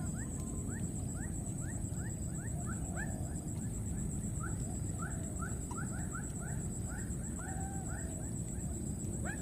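Rapid short rising chirping calls, several a second, with a few longer arched calls among them, over a steady low rumble of background noise.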